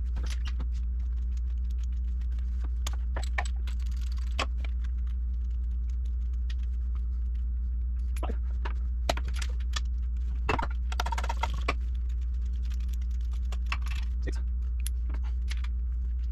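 Scattered metallic clinks and short jingles of hand tools and metal parts being handled during work on a car, over a steady low hum.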